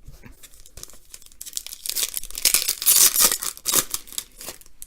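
A trading-card pack wrapper being torn open and crinkled, with a crackling rustle that builds and is loudest in the middle.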